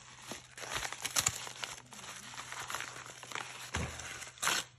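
Mailer envelope being torn open and crumpled by hand: irregular crinkling and tearing, with a louder rip near the end.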